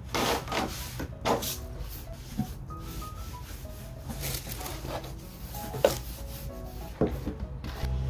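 Dishes and a plastic water bottle being moved about on a metal tabletop: a series of short scrapes and rubs, over soft background music.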